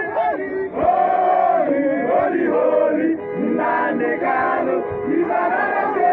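Crowd of men chanting and singing together, many voices overlapping.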